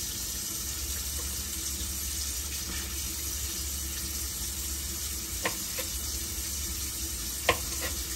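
Steady hiss with a low hum, broken by a few short knocks, the loudest about seven and a half seconds in.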